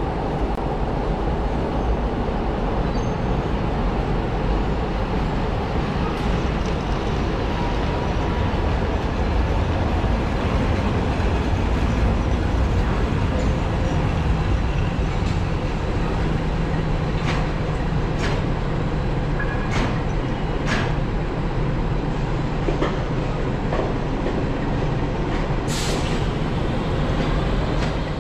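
Škoda electric locomotive hauling a passenger train past the platform: a steady hum of its motors and blowers over the rumble of wheels on the rails. A run of sharp metallic clicks comes in the later half, with a short high squeal near the end.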